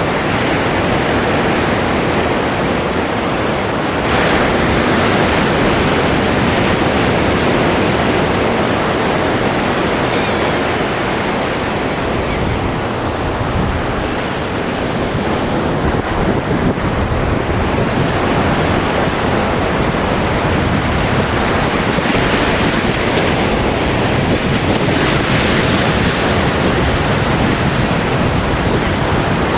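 Ocean surf: waves washing and breaking on a shore in a steady rush. The rush swells as new waves break, about four seconds in and again twice in the last third.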